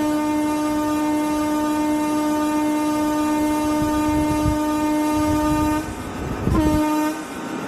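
Train horn sounding one long steady blast of about six seconds, then a short second blast near the end, over the low rumble of a train running on the track.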